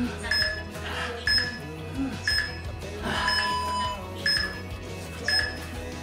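Upbeat electronic workout background music with short high electronic beeps about once a second, and a longer steady tone a little past halfway.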